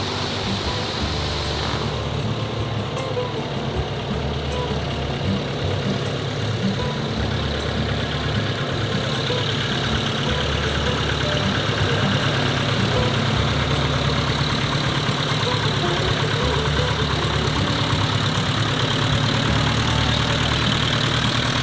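A light aircraft's piston engine running steadily at low power, getting a little louder about nine seconds in, then cutting off abruptly.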